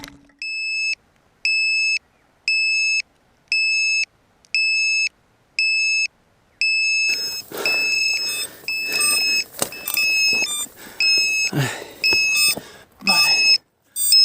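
A crashed FPV racing drone's lost-model buzzer beeping about once a second, each high-pitched beep lasting about half a second, sounding out so the downed quad can be found. From about seven seconds in, rustling and crunching join the beeps as they get louder.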